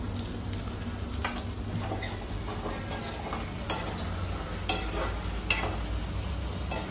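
Chopped vegetables frying in a steel kadhai while being stirred, with a spatula clinking sharply against the pan several times.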